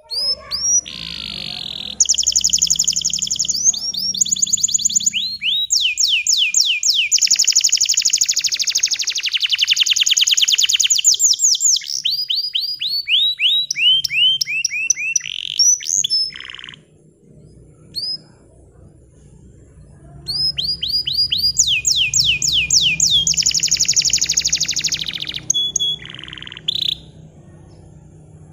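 Bottle-green domestic canary singing in two long bouts of fast trills and rapidly repeated sweeping notes, with a pause of a few seconds between the bouts.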